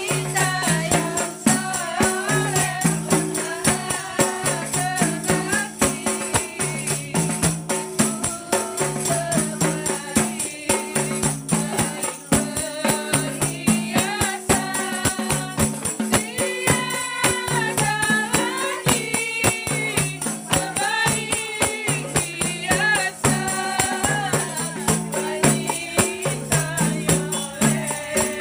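Qasidah devotional singing by women's voices, accompanied by rebana frame drums and a jingling tambourine keeping a quick, steady rhythm.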